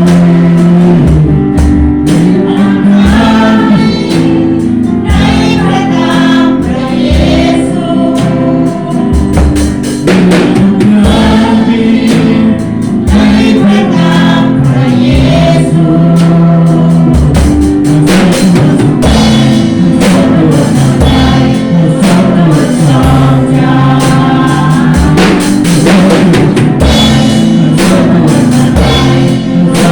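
Christian worship song: a band with drum kit and bass playing while a group of voices sings, over a steady drum beat.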